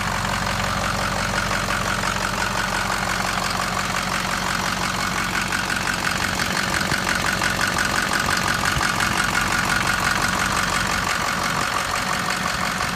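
Ford 6.0 L Powerstroke turbo diesel V8 idling steadily with a regular diesel clatter.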